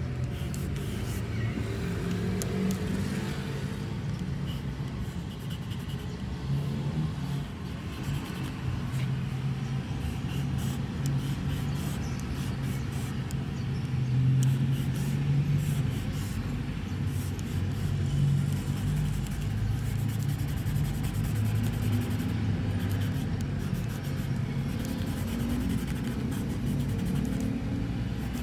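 Low, steady rumble of a motor vehicle engine, its pitch wavering slightly, with the faint scratching of a solid paint marker on a painted board.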